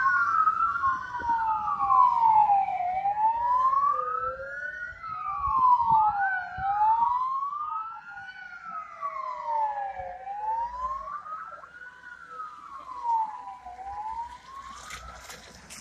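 Fire engine sirens wailing, two of them sweeping up and down out of step, fading as the vehicles drive away.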